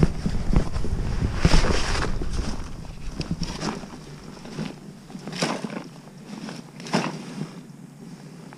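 Wind buffeting the microphone for the first few seconds, with scattered scuffs, knocks and rustles of gear being handled: fishing rods and a tackle bag set against a dirt bank among dry leaves.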